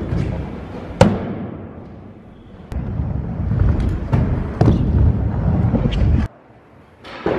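Stunt scooter wheels rolling over a skatepark ramp, with sharp clacks of the scooters hitting and landing, a loud one about a second in and several more later. The rolling cuts off abruptly near the end and a fresh clack follows.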